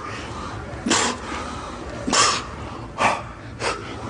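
A man's sharp, forceful breaths, four hissing puffs spaced roughly a second apart, the kind of exhaling that goes with lifting weights.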